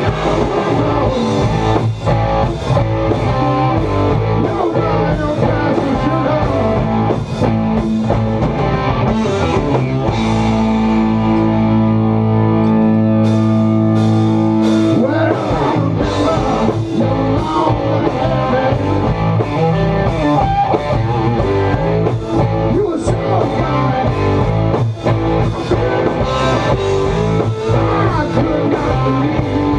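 Live blues-rock band playing loud: electric guitars over electric bass and a drum kit. About ten seconds in, the band holds one chord for about five seconds before the groove picks back up.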